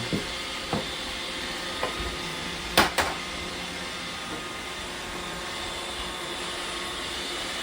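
Robot vacuums, a Roomba and a Shark, running with a steady whirring hum while picking up confetti. A few light clicks early on and two sharp knocks close together about three seconds in.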